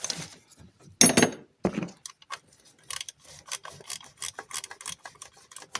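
Ratchet wrench clicking in short, irregular runs while a starter motor mounting bolt is undone, with a sharp metallic knock about a second in.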